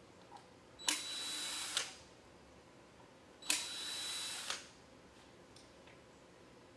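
DeWalt cordless drill/driver running twice, about a second each time, with a steady high whine, backing screws out of the faceplate of a hot tub pump's wet end.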